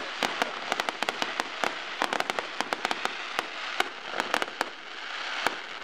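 Fireworks display going off overhead: dense, irregular crackling and popping, many sharp small bangs a second over a steady hiss.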